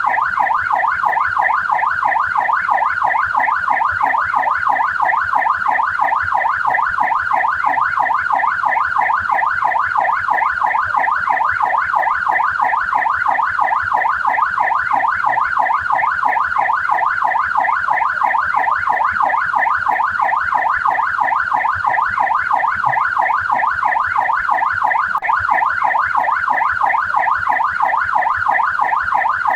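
Australian police car siren in yelp mode: a fast rising-and-falling electronic wail that repeats steadily without a break.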